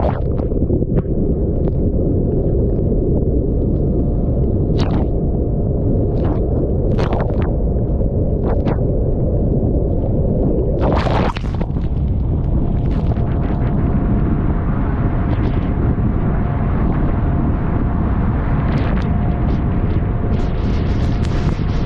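Strong wind buffeting the microphone aboard a Buster Magnum motorboat running through choppy waves, under it a faint steady engine tone. Sharp splashes break through several times, the biggest about eleven seconds in.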